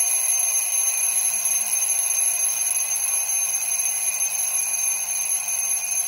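Twin-bell mechanical alarm clock ringing, a loud, steady, high metallic ring without a break.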